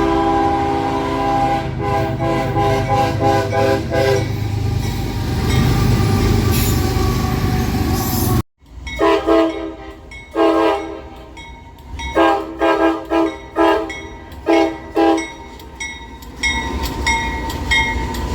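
Locomotive air horns sounding a multi-note chord. First comes a held, slightly broken chord for about four seconds over the rumble of a passing train. After an abrupt cut, a string of short horn blasts follows, ending in quicker, higher-pitched toots.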